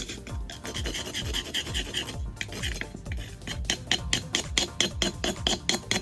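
Old mortar being scraped off a reclaimed brick to clean it for reuse. The scraping goes in repeated strokes, which turn into sharper, quicker strokes of about three or four a second from about halfway through.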